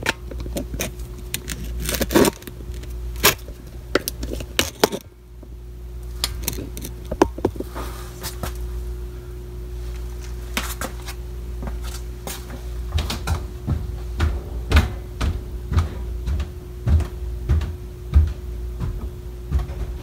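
Furnace blower motor, just fitted with a new run capacitor, humming steadily. About five seconds in the sound briefly drops away, then rises gradually as the blower spins up and runs. Scattered knocks and clicks throughout.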